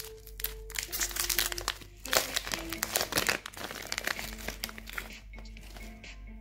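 Plastic snack wrapper of a wafer bar crinkling as it is pulled open by hand, the crackling loudest about two to three seconds in and easing off after.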